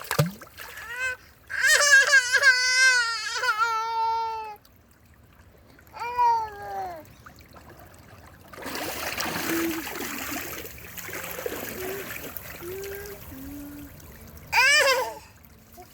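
A young child's high, wavering cries: one long wail, a shorter falling cry, and another brief cry near the end. In between, water trickles and splashes for several seconds.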